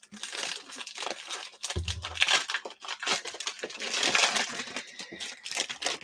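Plastic wrapper of a 2021 Donruss baseball fat pack crinkling and tearing as it is opened by hand, with a low bump about two seconds in.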